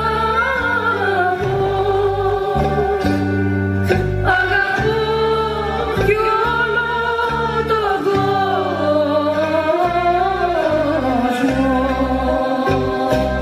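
Song with a sung melody gliding up and down over held bass notes.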